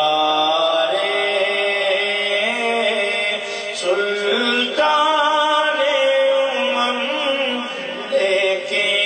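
A man singing a naat solo into a microphone, drawing out long held notes that bend slowly up and down in pitch.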